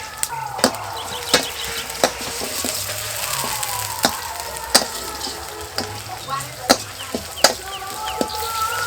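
Food sizzling in hot oil in a pan while it is stirred, with a utensil knocking against the pan at a fairly regular pace, roughly every half-second to second.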